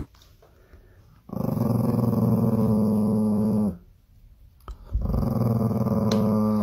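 Small Chihuahua-type dog growling at a lime held up to its face, teeth bared: two long, steady growls, the first starting about a second in and lasting over two seconds, the second starting about five seconds in.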